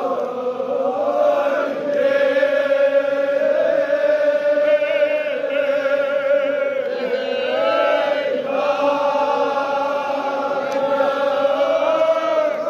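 Crowd of men chanting a Kashmiri marsiya (mourning lament) together, their voices holding long drawn-out notes, with pitch bends and slides above the held tone.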